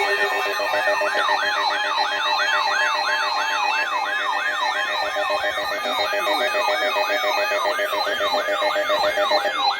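Electronic siren in a fast yelp, sweeping up and down about three or four times a second, layered with a second faster-warbling siren and steady tones.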